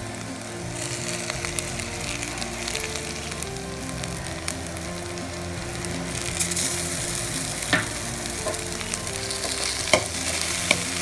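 Cauliflower, onion and cooked rice stir-fry sizzling steadily in a hot pan as the rice is tipped in and stirred with a spatula. There are a few sharp knocks of the spatula against the pan near the end.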